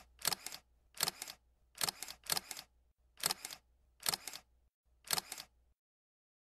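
Camera-shutter click sound effect, each a quick double click, repeated about eight times at uneven intervals of half a second to a second.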